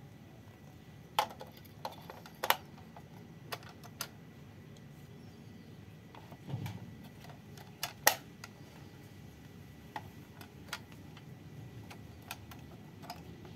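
Scattered sharp clicks and taps of hard plastic as a toy train is handled and its battery cover is fitted, with one duller knock partway through.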